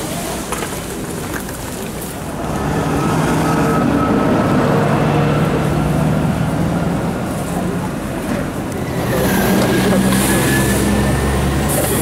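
Street traffic: a vehicle engine running with a steady hum from a few seconds in, and a heavier low rumble in the last few seconds as a city bus passes close by, with a faint falling whine. Faint voices chatter underneath.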